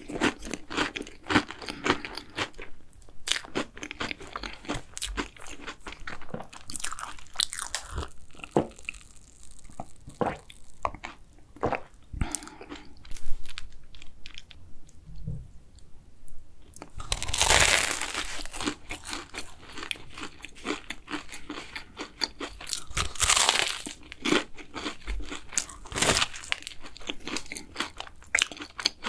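Close-miked eating of cookie choux pastries: chewing with crisp crunches of the cookie crust, a quieter stretch about halfway, then several loud crunching bites a few seconds apart.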